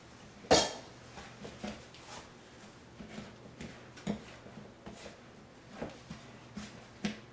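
Wooden spoon stirring stiff oat-and-flour biscuit dough in a mixing bowl: soft, irregular scrapes and light knocks. A sharper knock about half a second in.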